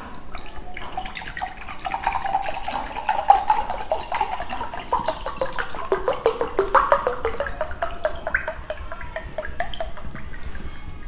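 Liquid being poured, splashing and glugging in quick succession.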